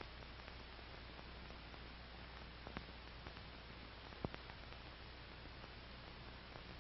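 Faint steady hiss and low hum of an old film soundtrack with no narration, broken by two small clicks, one a little before the middle and a sharper one just after it.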